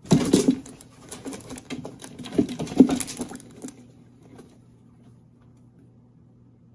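A guinea pig squealing and scuffling in bark bedding as a python strikes at it, a rapid burst of noises over the first four seconds. Then it fades to a faint low hum.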